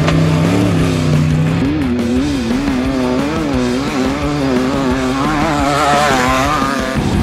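Off-road race car engine revving up and down over and over, the pitch swinging about twice a second as the car drives over rough dirt, then climbing higher about six seconds in.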